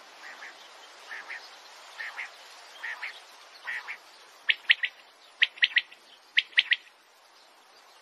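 Male common quail singing: five soft double notes about a second apart, then its loud three-note 'wet-my-lips' call three times in quick succession over the next two and a half seconds.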